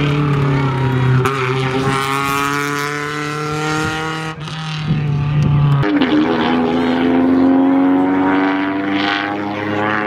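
Rally car engine running hard under acceleration, its pitch climbing steadily, dropping sharply about four seconds in, then climbing again.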